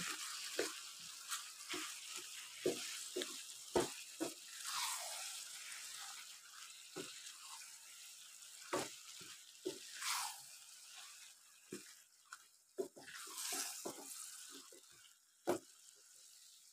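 Wooden spatula stirring spinach and meat in a frying pan, with irregular soft knocks and scrapes against the pan over a faint sizzle that fades toward the end.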